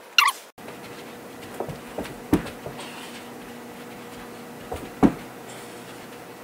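A person's feet thudding on a floor during home gymnastics moves: a few soft steps and two louder thumps, over a faint steady hum. Near the start, a short high squeak falls in pitch and cuts off suddenly.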